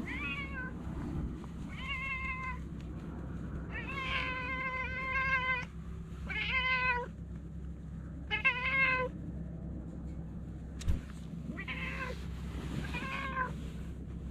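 A stray cat meowing over and over: about seven meows, mostly short, the longest lasting nearly two seconds. A single sharp click comes about eleven seconds in, over a steady low hum.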